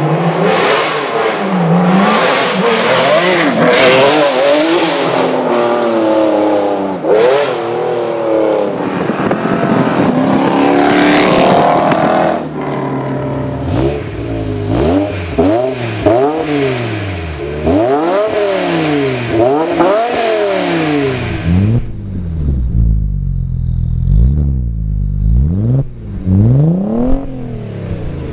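Decatted Ferrari Enzo V12 accelerating hard with rising revs. Then a 2010 BMW E60 M5's V10 through an RPI Section 3 GT exhaust, revved up and down repeatedly at standstill. Near the end, an Audi B5 S4's exhaust revving in lower, deeper blips.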